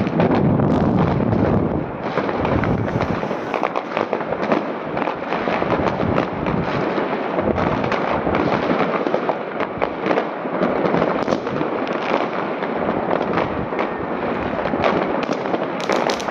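Many fireworks and firecrackers going off at once, a dense continuous crackle of overlapping bangs with no pause.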